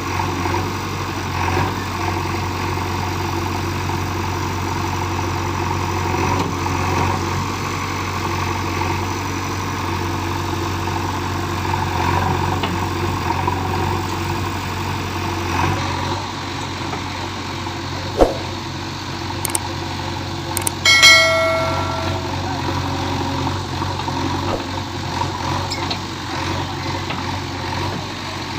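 Diesel engine of a JCB 3DX backhoe loader running steadily. About two-thirds of the way through there is a single sharp knock, and a few seconds later a short, high pitched tone lasting about a second.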